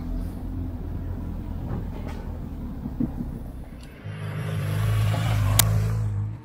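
Motorcycle engine running steadily, growing louder about four seconds in along with more rushing noise. A sharp click comes near the end.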